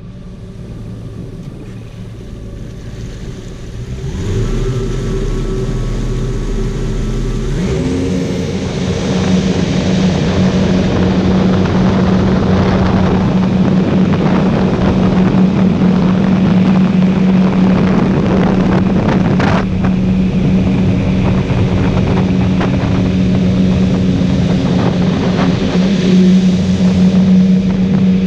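2012 Yamaha AR210 jet boat's twin engines pulling away from low speed, climbing in pitch and loudness in steps about four and eight seconds in, then running steadily at speed with water and wind rushing past.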